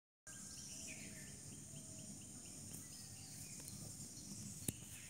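Faint outdoor ambience of insects and birds: a steady high insect hiss, with short chirps repeating about four times a second over the first few seconds and a few scattered whistled bird notes. A sharp click near the end.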